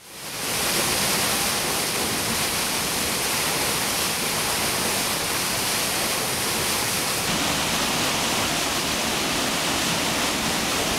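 Small waterfall pouring through a rock opening into a churning pool: a steady rushing of white water that fades in at the start.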